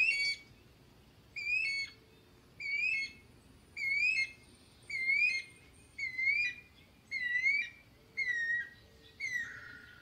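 Guira cuckoo (anu-branco) calling: a series of about eight wavering whistled notes, roughly one a second, the last note sliding lower.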